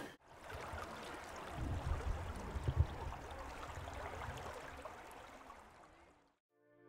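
Running water of a stream or river: a steady rushing with some low rumbling. It fades out about six seconds in.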